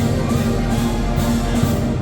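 Sierra Mixe philharmonic wind band playing: brass and woodwinds hold full chords over a steady percussion beat of about two to three strokes a second, which drops out right at the end.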